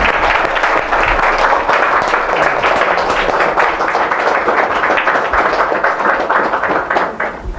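Small audience clapping, steady applause that thins out and stops near the end.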